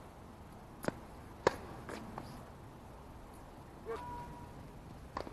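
Tennis ball struck by rackets: two sharp pops about a second in, half a second apart, the second louder, followed by a few light ball bounces. A short high squeak comes near four seconds in.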